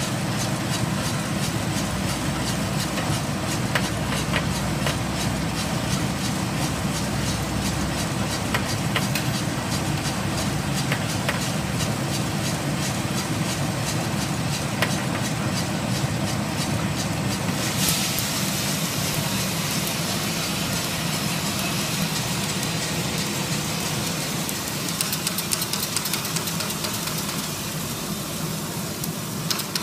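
10 kg gas-fired drum coffee roaster running steadily, its drum tumbling the beans with scattered faint clicks. About 18 s in a steady high hiss joins in as the roast is dropped into the cooling tray, and near the end the sound turns uneven as the tray's turning arms stir the hot beans.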